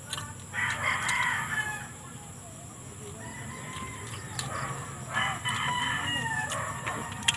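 A rooster crowing twice, each crow lasting about a second and a half, the second coming about five seconds in. A steady high-pitched whine runs underneath, with a few sharp clicks.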